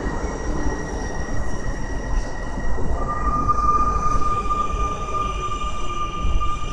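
Stadler KISS double-deck electric train at the platform: a low rumble with a steady high whine, which gives way about three seconds in to a lower, stronger steady tone.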